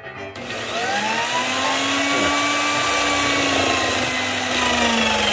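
Portable electric drill on a DIY lathe mount starting up suddenly with a rising whine, then running steadily with a sanding disc in its chuck. A carved wooden piece is held against the spinning disc, adding the rasp of wood being sanded, and the whine sags slightly under the load.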